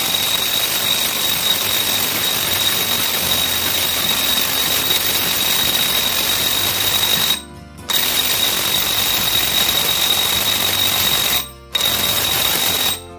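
Cordless impact wrench hammering at full power on a 65 mm nut in three bursts, a long one of about seven seconds, then about three and a half seconds, then about a second. The nut does not break loose.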